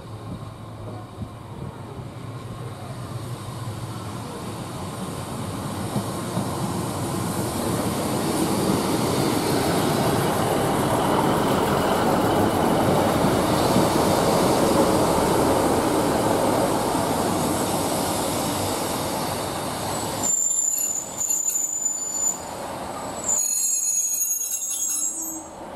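Class 156 Super Sprinter diesel multiple unit approaching and running past, its engine and wheel noise growing steadily louder. Near the end a high steady squeal comes in as the train slows at the platform.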